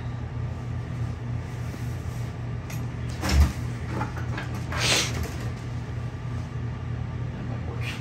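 Handling noises from tools being moved: a single thump a few seconds in and a brief scrape about a second and a half later, over a steady low electrical hum.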